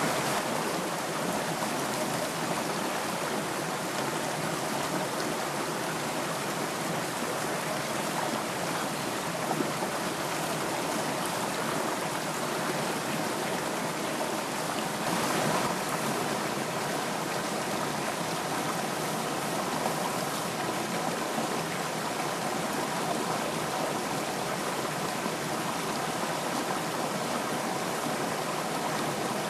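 Small rocky stream running steadily, its water splashing over stones in a little cascade below a pool.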